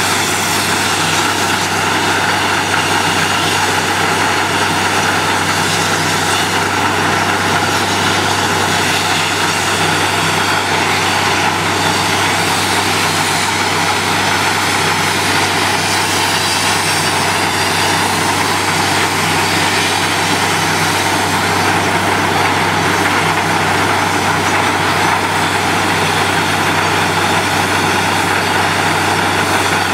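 Truck-mounted borewell drilling rig running steadily while it drills, a constant low hum under a loud, even rushing noise.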